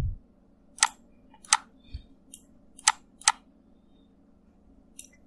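Computer mouse left button clicking: several short, sharp clicks at uneven intervals, a couple in quick pairs, over a faint steady hum.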